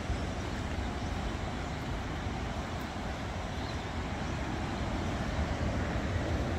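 Steady roar of ocean surf mixed with wind buffeting the microphone, heaviest and gustiest in the low end.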